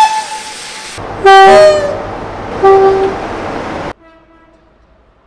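Train horns in quick succession: a high whistle note fading out at the start, then about a second in a loud two-tone horn, a low note followed by a higher one, and a second short low note. Near the end the sound cuts abruptly to a much fainter horn note.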